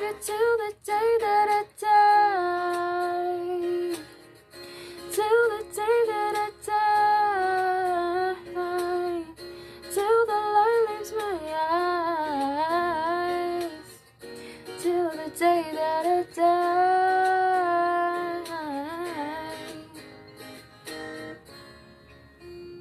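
A woman singing long, gliding held notes over acoustic guitar, trailing off near the end.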